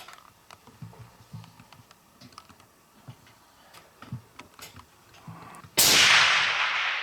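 A single rifle shot about six seconds in: a sharp, loud report followed by a long echo that fades slowly. Before it there are only faint small clicks.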